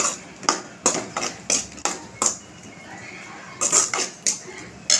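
Slotted metal spoon clinking and scraping against a metal kadai while mushroom gravy is stirred. Quick strokes come about three a second for two seconds, then after a short pause a few more.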